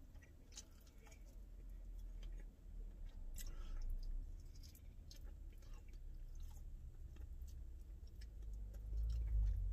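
Close-up chewing of chicken wings: faint wet smacks and clicks of eating, over a steady low rumble that grows louder near the end.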